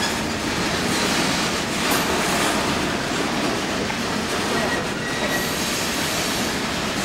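Freight train of boxcars rolling past, a steady rumble and rattle of steel wheels on rail, with a brief faint high wheel squeal about five seconds in.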